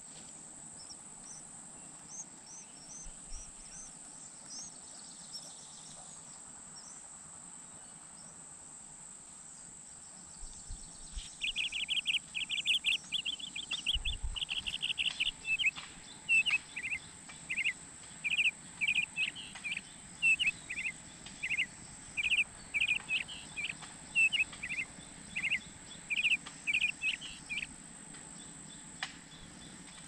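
American robin nestlings begging for food: from about a third of the way in, a rapid stream of short, high peeping calls in quick clusters, the chicks calling as a parent comes to the nest. A few faint high chirps come before it, and a steady high whine runs underneath.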